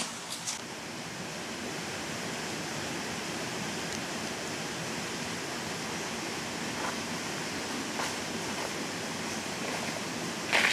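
Steady, even rushing background noise of the forest. Near the end, a loud footstep crunches on dry leaves.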